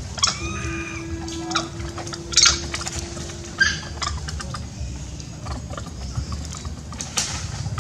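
A pitched animal call lasting about a second, with a steady low hum and a few sharp knocks and clatters over a constant low rumble.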